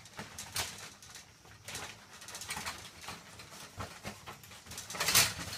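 Shower curtain rustling and its rings clicking on the rod as a cat climbs and clings to it: faint scattered scrapes about once a second, with a louder scrape about five seconds in.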